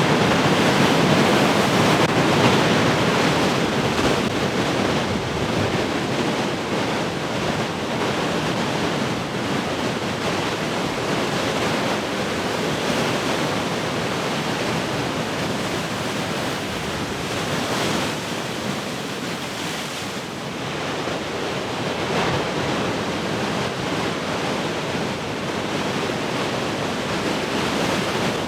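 Large ocean waves breaking in continuous surf, a dense rushing wash that is loudest in the first few seconds and then steady.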